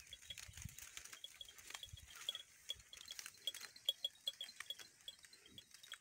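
Goats tearing and chewing grass up close: faint, irregular crisp clicks and crackles of cropping. A fast, steady high chirp repeats in the background.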